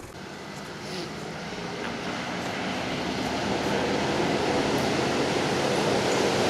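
An off-road vehicle's engine running and growing steadily louder.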